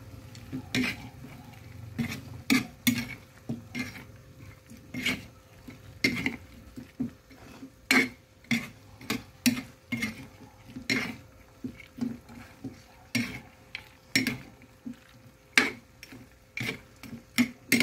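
A metal ladle stirring chicken feet in sauce in a metal pan, clinking and scraping against the pan about once or twice a second at an irregular pace.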